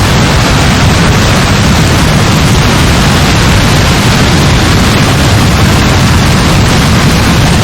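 Heavy rain pouring steadily: a loud, even hiss with a strong low rumble underneath.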